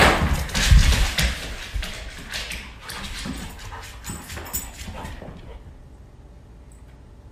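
Scuffling and thumps as a person drops down onto a rug, followed by a dog's paws clicking on a hardwood floor as it runs up; the knocks are loudest in the first two seconds and fade out about halfway through.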